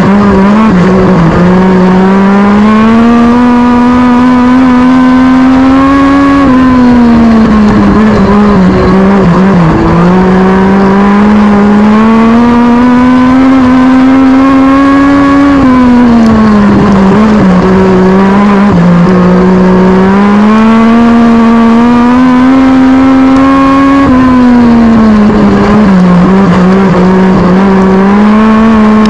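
Legend race car's Yamaha 1250 cc four-cylinder motorcycle engine heard from inside the cockpit under racing load. Its pitch climbs along each straight and drops as the driver lifts for the turns, about every nine seconds, three times.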